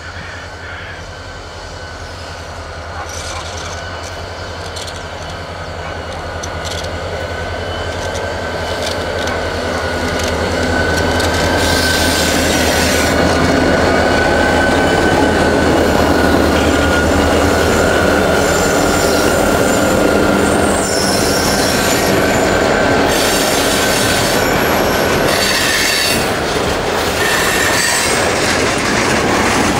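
Diesel freight locomotives approach and pass at close range, their engines running with a low steady drone that grows louder over the first ten seconds or so. The freight cars then roll by with a steady wheel squeal and clacking over the rail joints.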